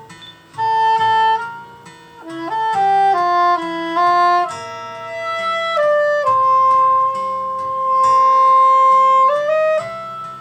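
Saxophone playing a slow, gentle melody over lower accompaniment notes, holding one long note through the middle before the line steps upward again near the end.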